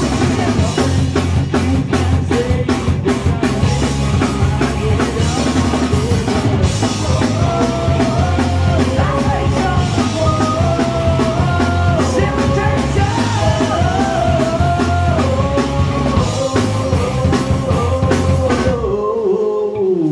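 Punk rock band playing live: distorted electric guitars, bass and a drum kit, with a melodic lead line over the middle. Near the end the drums and cymbals stop and a held note slides down in pitch as the song finishes.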